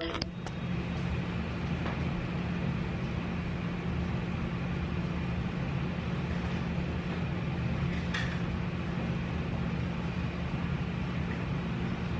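A steady low mechanical hum with an even noise bed behind it, and a faint click about eight seconds in.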